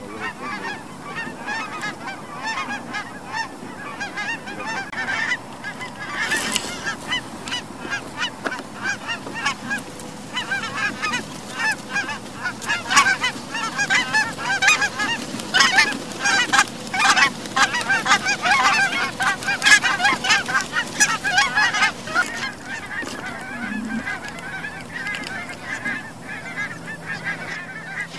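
A flock of geese honking, many overlapping calls that grow denser and louder through the middle and thin out near the end.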